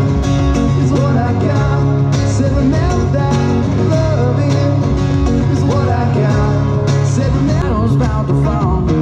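Live cover-band music: a strummed acoustic guitar with a second guitar, a steady low bass line and a sung melody, played loud through a PA.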